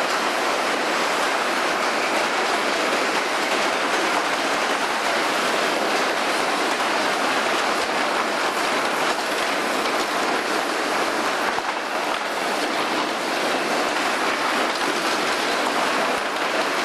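Small ride cars rolling over a wooden plank track: a steady clattering noise with no pauses.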